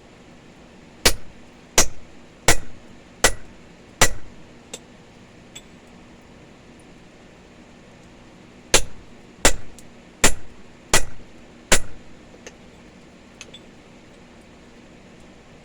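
Hand hammer striking a punch to drive a hole through hot steel for a chipping hammer head: two runs of five heavy blows, about 0.7 s apart, with a pause of several seconds between them, each blow ringing briefly.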